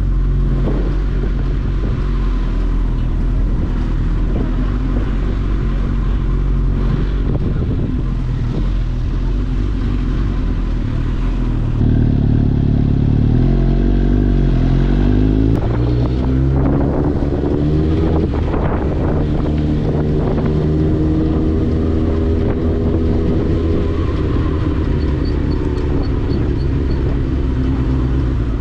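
Suzuki GSX-S1000's inline-four engine through a Leovince exhaust, cruising and then accelerating hard about twelve seconds in, its pitch climbing through gear changes. A cluster of sharp exhaust pops and crackles comes on the shifts a few seconds later.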